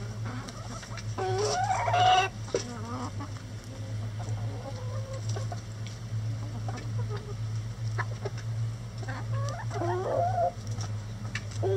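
A flock of chickens clucking and calling, with the loudest calls about a second in and again near the end, over a steady low hum.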